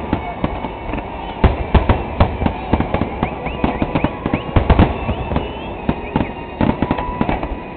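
Fireworks finale: a rapid, dense barrage of aerial shell bangs and crackling, many reports a second, with a few brief high whistles in the middle.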